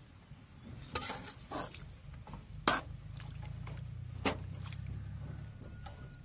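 Flat metal spatula stirring thick chicken curry in a metal pot: a few sharp clinks of the spatula against the pot, the loudest about halfway through, over wet sloshing of the gravy and a steady low hum.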